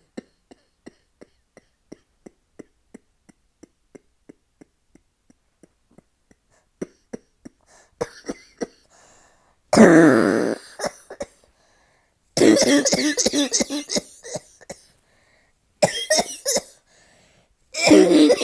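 A woman coughing hard in repeated fits, a nasty cough from a cold. It starts quietly with faint, evenly spaced ticks, and the loud coughing spells begin about eight seconds in.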